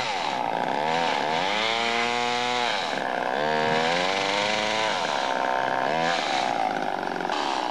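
Two-stroke chainsaw running, its engine revving up and dropping back several times.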